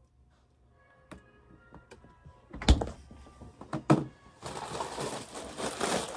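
A refrigerator being opened: two sharp knocks a little over a second apart, then a steady crinkling of plastic starting about four and a half seconds in.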